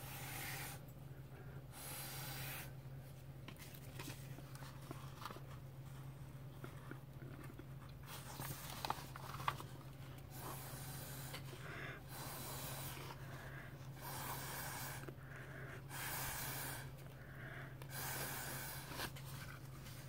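Short puffs of breath blown through a drinking straw onto wet alcohol ink to push it across the paper, several in a row, each under a second long and coming more often in the second half. A steady low hum runs underneath.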